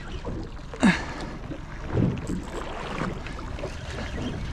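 Steady wind and water noise around a small boat at sea, with a short sharp sound about a second in.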